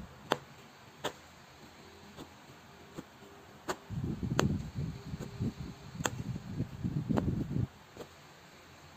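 Punch needle stabbing through yarn into cloth stretched tight in an embroidery hoop, giving sharp single clicks a second or so apart. From about four seconds in there is a few-second stretch of low rustling and scraping as the hoop and fabric are handled and turned.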